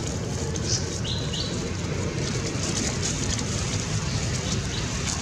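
Outdoor ambience: a steady low rumble, with two short high chirps about a second in.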